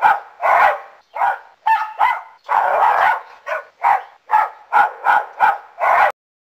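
Dalmatian barking in a quick series of about a dozen barks, two or three of them drawn out longer, stopping suddenly about six seconds in.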